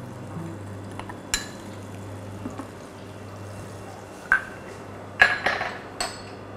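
A non-stick frying pan and kitchen utensils clinking and knocking as sugar and butter go into the pan: single sharp knocks about a second in and again past four seconds, then a quick run of metallic clinks near the end. A steady low hum runs underneath.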